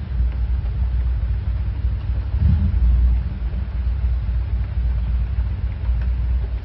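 Steady low rumble of a fan's air stream buffeting the microphone, swelling once about two and a half seconds in and dropping away at the very end.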